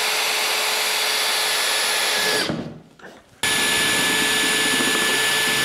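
Power drill running at steady speed, boring a hole through a clear plastic box wall, with a high steady whine. Two runs: the first winds down about two and a half seconds in, and the second starts about a second later and cuts off suddenly.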